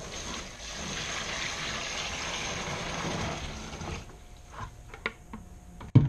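Water poured from a plastic bucket into the wash tub of a twin tub washing machine, a steady splashing pour that stops about four seconds in. A few light knocks follow.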